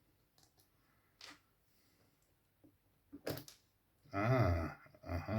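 Light clicks of small RC car parts and tools being handled, with a sharper double click about three seconds in, then a brief voiced murmur near the end.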